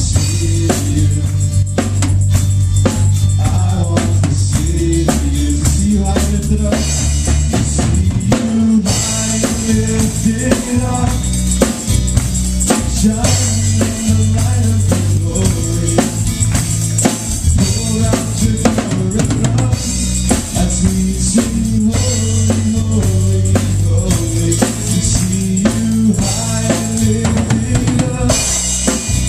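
A live worship band playing an instrumental passage: a drum kit keeping a busy beat over sustained bass notes that change every few seconds, with no singing.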